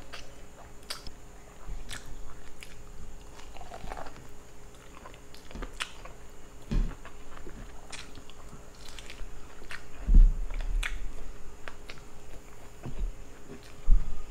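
A person biting and chewing buttered shrimp and corn on the cob close to the microphone: scattered sharp mouth clicks, with two low thumps about seven and ten seconds in, the second the loudest.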